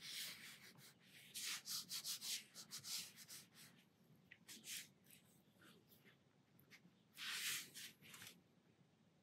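Fine round brush flicking short strokes across watercolour paper to paint grasses: a faint dry scratching. A quick run of strokes comes first, then a few scattered ones and a longer stroke near the end.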